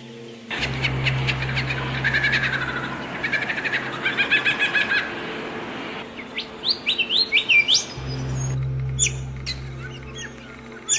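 Several songbirds chirping and singing in overlapping rapid trills and quick rising notes. A steady low hum runs under them for the first half and returns later, stopping and starting abruptly.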